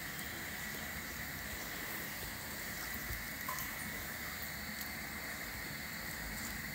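Faint steady background hiss with a thin, constant high whine and a few very faint soft ticks; no distinct sound rises above it.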